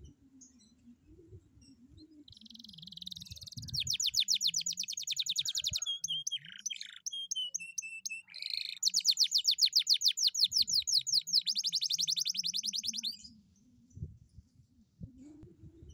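Domestic canary singing a song of about ten seconds, starting a couple of seconds in: fast, even trills of repeated notes, broken in the middle by a slower run of falling whistled notes, then more fast trills, ending a few seconds before the end.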